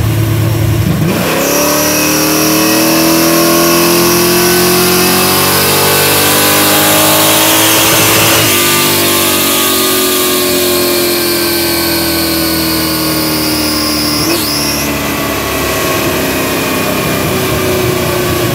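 A 1968 Chevelle SS's V8 making a dyno pull. About a second in it leaves idle, then the engine note climbs steadily for about seven seconds under load. After that it falls slowly as the car winds down on the rollers, with a brief sharp blip about fourteen seconds in.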